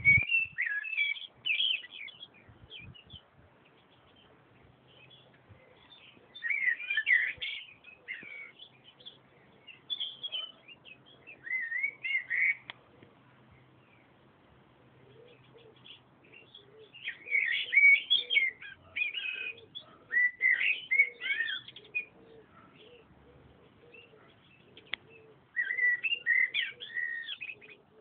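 Songbirds singing in short warbled phrases of gliding notes, a cluster every few seconds with quiet gaps between.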